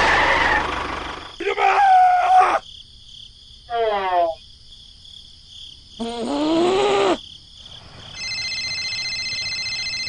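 Dubbed sound effects for a toy tractor scene. A low engine rumble fades out in the first second or so. Three short voice-like calls follow, sliding up and down in pitch, and from about eight seconds in a steady electronic ringing tone like a phone ringtone sounds.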